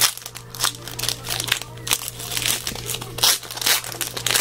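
Hockey trading cards and their packaging being handled: irregular rustling and crinkling strokes, several a second.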